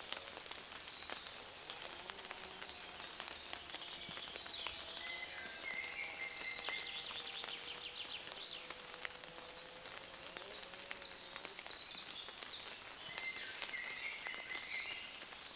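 Forest ambience: songbirds singing short high phrases and trills, with scattered light ticks of drops falling.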